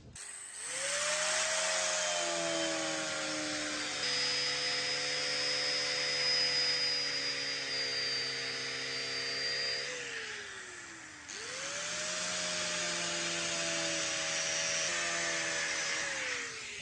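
Electric angle grinder with a buffing pad polishing a TT-30 pistol frame. It is switched on twice: each time the motor whines up to speed, runs steadily with a hiss from the pad on the metal, then winds down with a falling whine, once about ten seconds in and again near the end.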